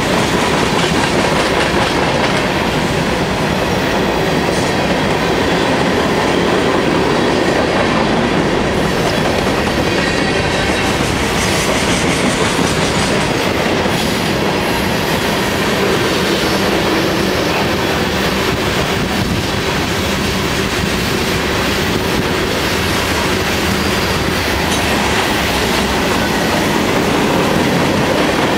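Freight train of covered hopper cars and tank cars rolling past close by: a steady, loud rolling noise of steel wheels on the rails.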